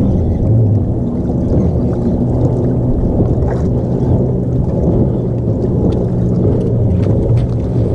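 Wind rumbling on the microphone over small waves lapping at a bass boat's hull: a loud, steady, low rumble.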